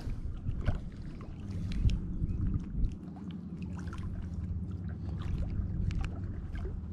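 Hands unhooking a small bass: a scatter of small clicks and rustles from the hook and fish being handled, over a steady low hum.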